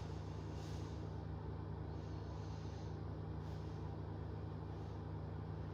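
Steady low hum, with a few faint soft hisses now and then.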